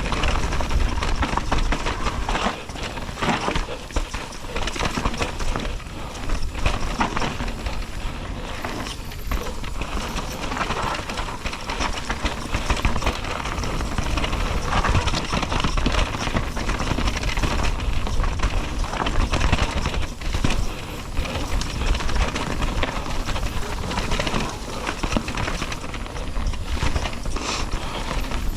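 Mountain bike descending a rough dirt trail, heard from an action camera on the bike or rider: continuous tyre roar and wind on the microphone, with the frame, chain and parts rattling and clattering over roots and rocks.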